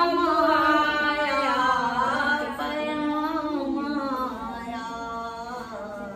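Women singing an unaccompanied Islamic devotional recitation (naat) in long, held, wavering notes, growing a little softer toward the end.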